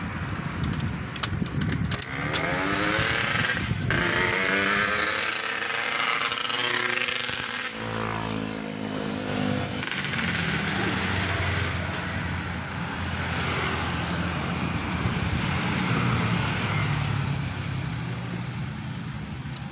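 Road traffic going by: motor vehicles passing one after another, with one engine's note sliding in pitch as it goes past near the middle, then a steadier low engine hum.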